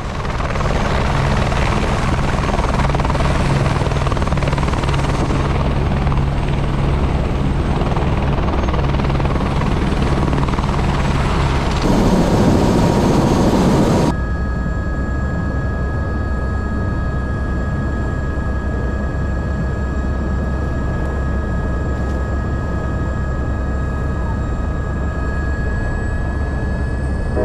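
Helicopter rotor and turbine engine running steadily in flight, with a low pulsing beat. Just after the middle the sound changes abruptly to a slightly quieter one with a steady high whine on top.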